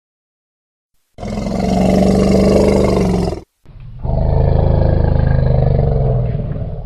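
Wild elephant giving two long, low, rough roars, the first starting about a second in and the second following after a brief pause.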